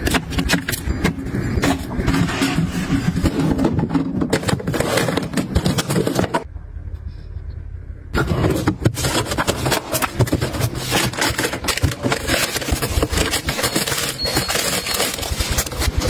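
Clatter and scraping of glass jars, plastic containers and fruit being handled and set onto refrigerator shelves, a turntable and a produce drawer: many short knocks and clicks, with a quieter break of about a second and a half near the middle.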